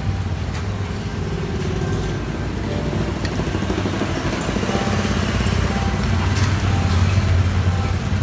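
A steady low engine rumble, growing somewhat louder toward the end.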